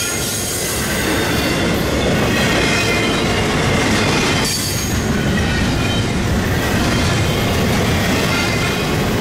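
Double-stack intermodal container train rolling past: a steady loud rumble and clatter of the well cars' wheels on the rails, with faint high squealing tones above it.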